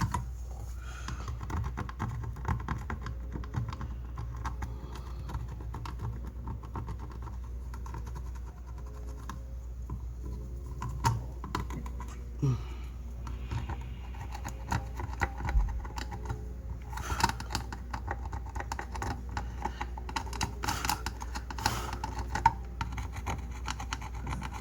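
Brush scrubbing flux off an amplifier circuit board: dense, irregular scratching and ticking that comes in louder spells in the second half, over a steady low hum.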